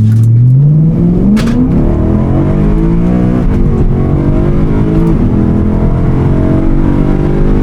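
BMW E9X M3's V8 engine accelerating hard. Its pitch climbs over the first couple of seconds, drops at an upshift about three and a half seconds in, then climbs again.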